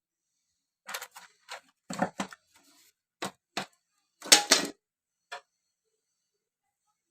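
Irregular clicks and knocks of hands and tools working on a vintage radio cassette player under repair. There are about a dozen sharp taps, with the loudest cluster a little past four seconds in. They stop shortly after five seconds.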